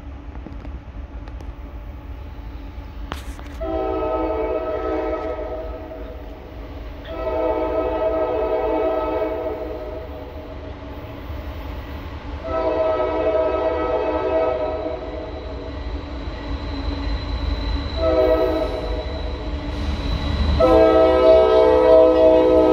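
Diesel locomotive horn on the lead GE C40-8W sounding five blasts for a grade crossing as the train approaches. The fourth blast is short and the last is held on as the locomotive reaches the crossing. The blasts grow louder as it nears, over a steady low rumble.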